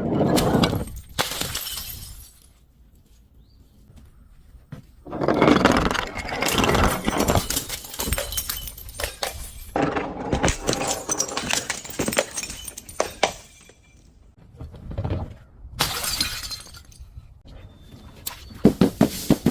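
Glass bottles being broken and crushed: several bouts of shattering and crunching glass, separated by short pauses, with the longest bout in the middle.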